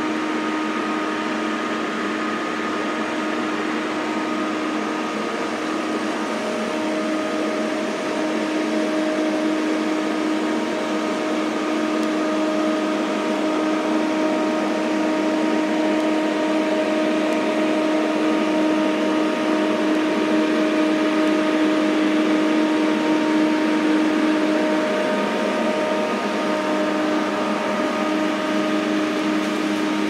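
Engine of a heavy logging machine working in the woods: a steady, unbroken mechanical drone with a constant hum, getting slightly louder partway through.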